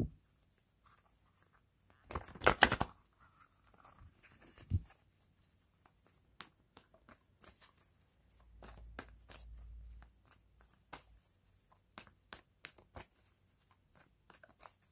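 Tarot cards being shuffled by hand: a loud burst of rapid card flicks about two seconds in, then many small scattered clicks as the deck is handled.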